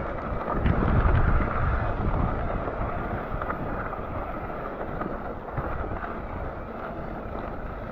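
Rumbling trail noise from an electric mountain bike being ridden up a rough climb, with wind buffeting the microphone; loudest for the first couple of seconds, then steadier and quieter.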